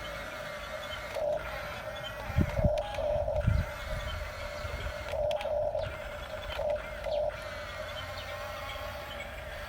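Small electric motors and gearboxes of a Huina radio-controlled construction toy whining steadily, swelling in several short bursts as it is driven, with a few low knocks between about two and three and a half seconds in.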